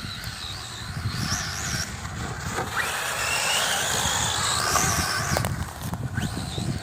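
Radio-controlled short-course truck running off-road, its motor and gears whining higher and lower as it speeds up and slows, with tyres rumbling over the dirt.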